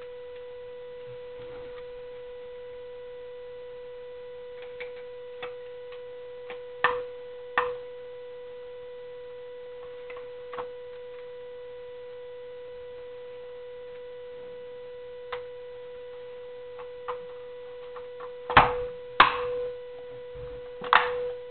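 A steady electrical buzz in the recording, one pitch with a row of overtones, under scattered light clicks and knocks from the plastic parts of a Spektrum DX3S radio transmitter being fitted back together; the loudest knocks come near the end.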